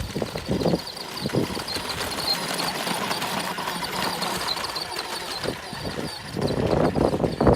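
Small electric quad converted to 12 V running, its brushless motor giving a steady high whine over the rolling noise of the wheels. There are rough low thumps in the first second and again near the end.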